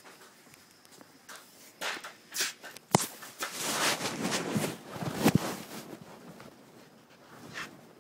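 Footsteps and scuffing on a hard floor, with a few sharp knocks. The loudest knocks come about three seconds in and again a little after five seconds, and the sound fades toward the end.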